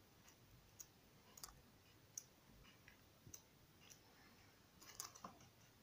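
Faint ticks and soft flicks of paper as colouring-book pages are turned by hand, scattered through the quiet, with a small cluster about five seconds in.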